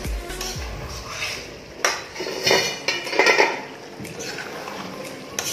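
Spatula scraping and knocking against a wok of thick chicken masala while it is stirred, with a cluster of loud clanks near the middle.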